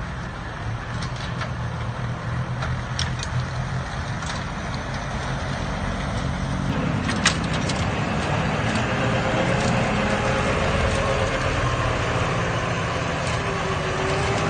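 Tractor engine running under load with a front-mounted snowblower clearing snow, a steady mechanical drone with a few sharp clicks. About six and a half seconds in the sound changes abruptly to a brighter, more rushing blend of engine and blower.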